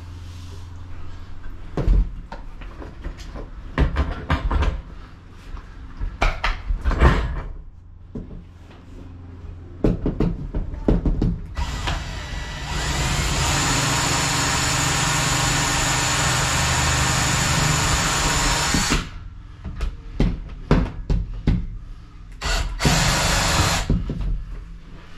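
Power drill running steadily for about seven seconds in the middle, with a constant high whine, between scattered clunks and knocks of handling.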